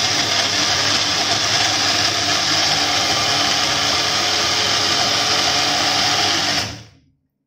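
Wonderchef Nutri-Blend personal blender motor running steadily at speed, blending a mango milkshake until smooth. It winds down and stops near the end when the jar is twisted to switch it off.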